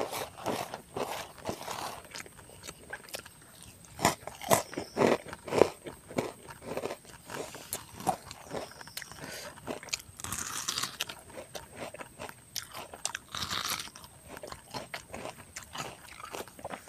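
A person chewing and crunching crisp food close to the microphone, in irregular bites and chews, with the sharpest crunches about four to six seconds in.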